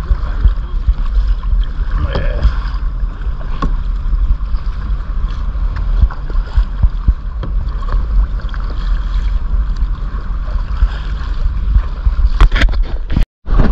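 Wind buffeting the microphone with a heavy low rumble over choppy water lapping against a kayak hull, with scattered small splashes.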